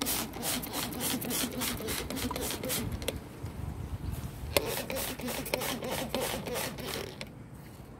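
Hand-held trigger spray bottle squirting onto leaves over and over, each pull a short hiss, in quick runs with a pause in the middle.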